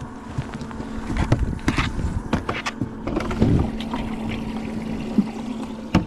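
A largemouth bass being put into a boat's livewell: water sloshing and splashing about three and a half seconds in, among repeated knocks and clicks from lids and gear being handled, over a steady low hum.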